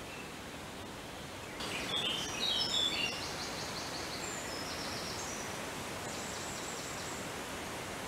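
Birds calling in woodland over a steady outdoor hiss. About two seconds in comes a burst of short, varied high chirps, followed by a fast run of high notes that carries on until near the end.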